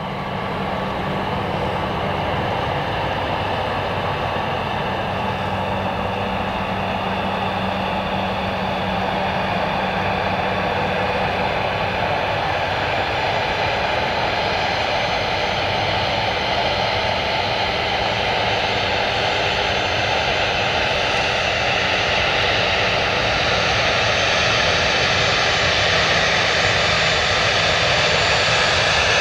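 A Dassault Falcon 7X's three Pratt & Whitney Canada PW307A turbofans running at low power as the trijet taxis, a steady jet whine with several tones. It grows slowly louder, and a higher whine comes in over the second half.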